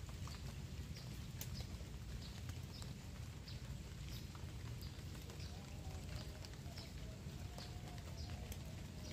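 Outdoor pond-side ambience: a steady low rumble with a short high chirp repeating at an even pace, about every two-thirds of a second. From about halfway a faint wavering mid-pitched call joins in.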